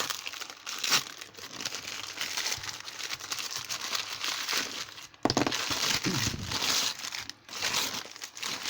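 Packing paper crinkling and tearing as it is pulled off a wrapped padlock, getting louder about five seconds in.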